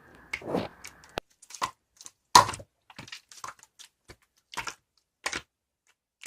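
Slime being worked by hand, giving a string of irregular sticky clicks and small pops, roughly two a second.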